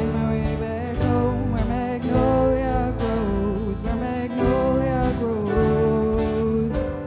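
Live rock band playing an instrumental break: electric guitar and drum kit, with a melody line that bends in pitch over the steady drum beat.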